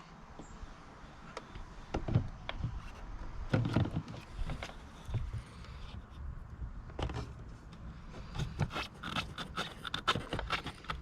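Hands handling the socket and tape: rubbing and scraping with a few separate knocks, then a quick run of clicks and taps near the end.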